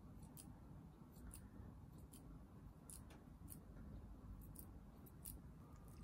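Curved grooming scissors snipping a Bichon Frise's fluffy head coat: a dozen or so faint, short snips at an uneven pace.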